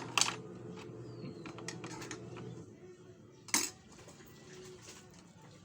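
Eating utensils clinking against a plate during a meal: a few sharp, brief clinks, the loudest about three and a half seconds in.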